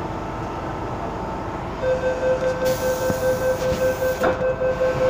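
MTR M-Train door-closing warning: a rapid pulsing electronic beep, about four beeps a second, starting about two seconds in over the steady hum of the train at the platform. A hiss and a clunk come near the end as the doors begin to close.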